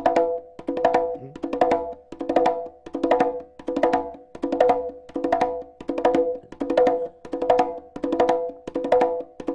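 Conga drum played with bare hands: a repeating exercise pattern of accented, ringing strokes with soft fingertip ghost strokes between them, the figure looping about every three-quarters of a second at a steady tempo.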